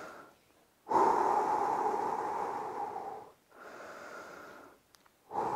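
A man taking slow, deep breaths to recover between exercise sets. A long, strong breath comes about a second in, a softer, shorter one follows a couple of seconds later, and another strong breath starts near the end.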